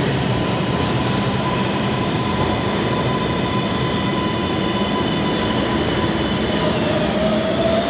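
New York City subway trains running through an underground station: a steady heavy rumble of wheels on rails, with a thin high tone held throughout and a rising whine near the end.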